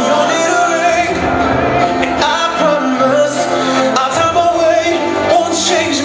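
R&B song playing with a vocal melody held over instrumental backing.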